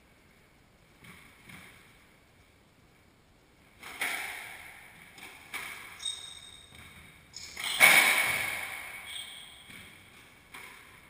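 A squash rally: racket strikes and the ball smacking the walls, each hit echoing around the enclosed court, the loudest about eight seconds in. Sneakers squeak briefly on the wooden floor a couple of times.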